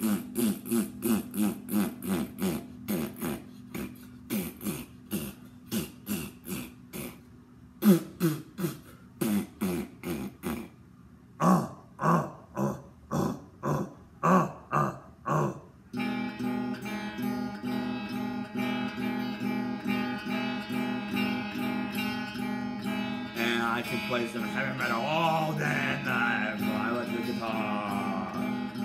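Electric guitar strummed in a steady rhythm of chord strokes, with a couple of short breaks. About halfway through it changes to sustained ringing notes, with wavering higher notes over them near the end.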